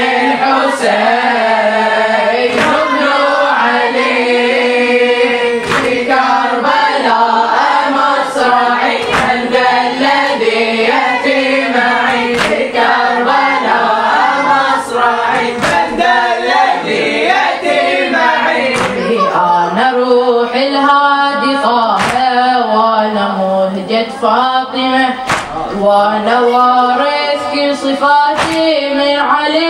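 Boys singing an Arabic Muharram mourning chant (latmiya): a boy leads and a chorus of boys sings with him, with sharp thumps every few seconds.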